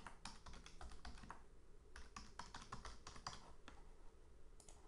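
Faint typing on a computer keyboard: two quick runs of key clicks with a short pause between them, and a couple of stray clicks near the end.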